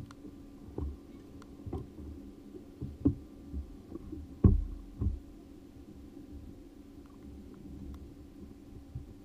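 Muffled thumps and knocks on a fiberglass bass boat's deck, several in a row, the loudest about four and a half seconds in, over a steady low hum.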